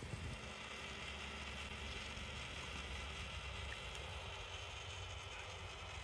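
Faint, steady hiss of outdoor background noise with a low rumble beneath it.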